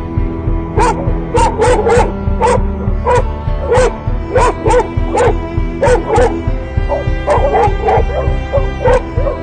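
Dog barking over and over, sharp yips about two a second that grow fainter near the end, over background music with a steady beat.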